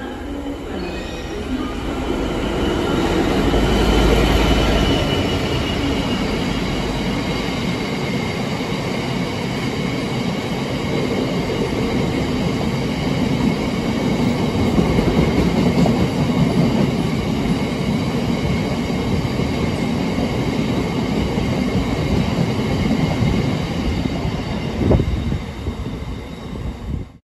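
Class 66 diesel locomotive running past, loudest about four seconds in. A long rake of freight wagons follows, rumbling and clacking over the rails with a steady high squeal from the wheels. One sharp clank near the end.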